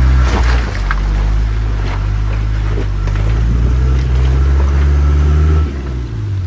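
Land Rover Defender pickup's engine pulling hard under load as it climbs a wet, rocky gully, held at steady revs and then easing off near the end. A few sharp knocks from the rocks under the wheels sound over it.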